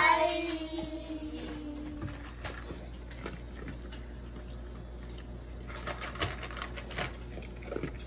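A child's drawn-out "bye" fading away over the first two seconds, then a dog eating dry kibble from a steel bowl: irregular crunching clicks, thickest near the end.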